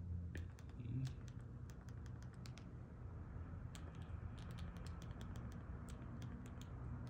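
Small plastic clicks of a TV remote control's arrow buttons pressed in quick succession, in two runs with a pause of about a second between them, over a low steady hum.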